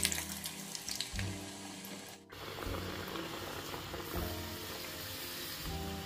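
Potato sticks deep-frying in hot oil in a steel saucepan: a dense, steady sizzle of bubbling oil that comes in full about two seconds in, with background music underneath.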